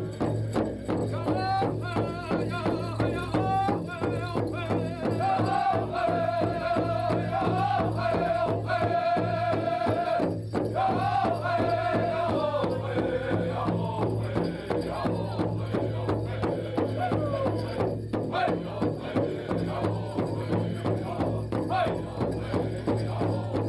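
Powwow drum song: a steady, even drumbeat with singers' voices over it, the melody held high and then sliding downward partway through.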